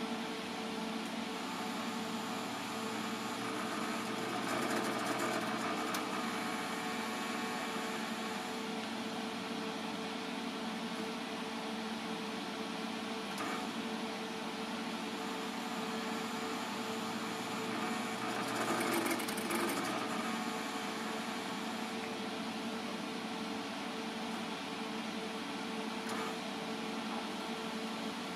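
Steady electromechanical hum from a hydraulic test bench while a proportional valve's solenoid is driven with no oil flowing. It holds a constant mid-pitched tone and swells briefly twice, about four seconds in and again near eighteen seconds.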